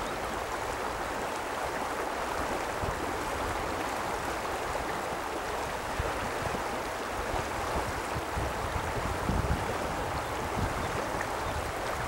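Steady rush of river water flowing, with a few low rumbles near the end.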